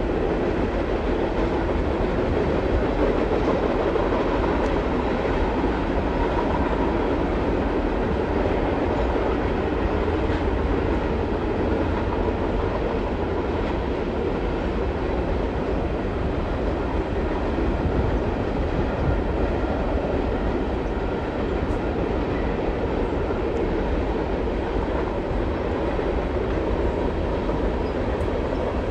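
Mixed freight train of tank cars, hoppers and gondolas rolling past at speed, a steady, continuous rumble of steel wheels on rail as the cars cross a river bridge.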